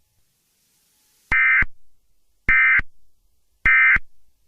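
Emergency Alert System end-of-message signal: three short, loud bursts of the SAME digital data tone, about 1.2 seconds apart, marking the close of the alert.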